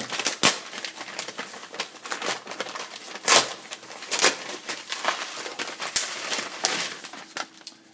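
Packing bag rustling and crinkling as it is handled and opened, with a few sharper, louder crackles about half a second, three and four seconds in.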